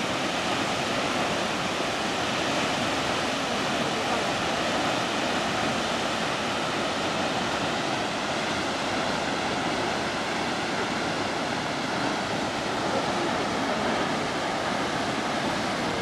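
The almost 100-metre Kegon Falls rushing steadily: an even, unbroken hiss of falling water.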